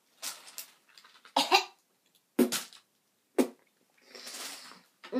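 A young woman coughing and gagging in disgust at the taste of a mouthful: four short retching sounds about a second apart, then a longer breathy rasp near the end.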